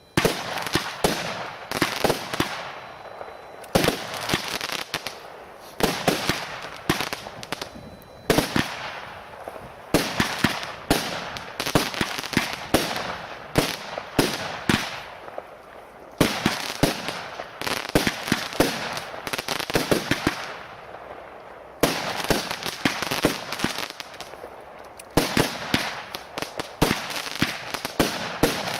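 A 16-shot consumer firework battery firing one shot after another, about every two seconds. Each shot ends in a sharp, loud bang followed by a spell of crackling.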